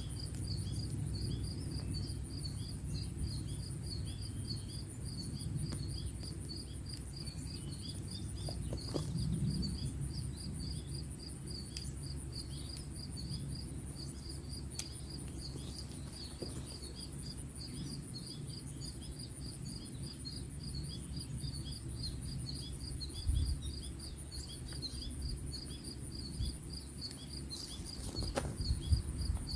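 Insects chirping steadily in a rapid, even pulse of high notes, over a low rumble with a few faint knocks.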